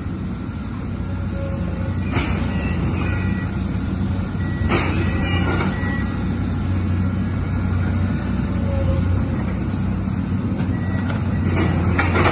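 Excavator's diesel engine running steadily, with a few brief sharp noises about two, five and twelve seconds in.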